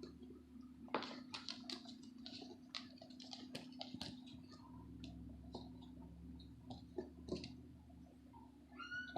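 Pit bull–Siberian Husky mix puppies moving and mouthing, with scattered small clicks and ticks, and one short high-pitched puppy whimper near the end.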